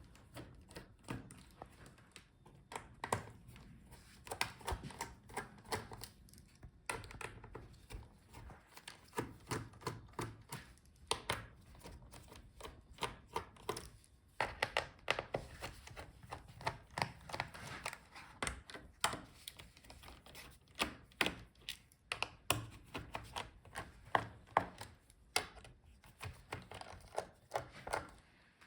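Faint, irregular clicks and light knocks of a screwdriver working the bottom-case screws out of a Dell Latitude 7520 laptop, with the laptop and tool being handled between screws.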